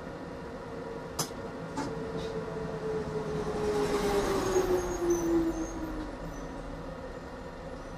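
Tram running on its track: three sharp clicks in the first few seconds, then a louder stretch of running noise with a whine that falls slowly in pitch before it dies away.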